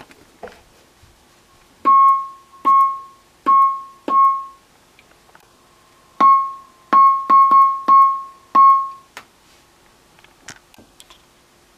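One-transistor BC547 sound-effect circuit, an audio oscillator held at the brink of oscillation and triggered by a push button, giving wood-block or claves-like knocks. Ten short tocks, all at the same pitch, each ringing out and dying away within about half a second: four evenly spaced, a short pause, then six more, some in quicker succession.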